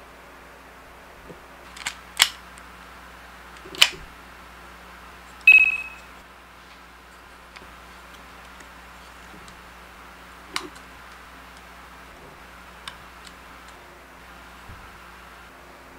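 Die-cast and plastic parts of a toy robot figure clicking and clacking as it is handled and its arms are pulled out, a handful of sharp separate clicks, the loudest about five and a half seconds in with a short ringing tone. A steady low hum runs underneath.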